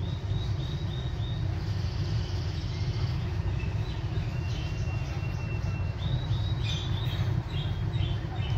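High, bird-like chirps in quick series, a run near the start and another from about six seconds in, with a single held high note between them, over a steady low rumble.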